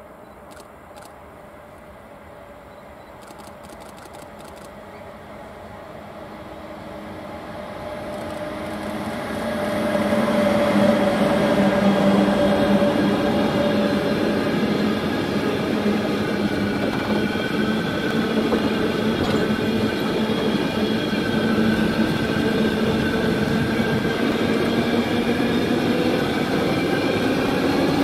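Electric locomotive hauling a freight train of enclosed double-deck car-transport wagons, approaching and passing close by. The sound builds over about ten seconds, then the wagons' wheels run past on the rails loudly and steadily, with a droning hum over the rushing noise.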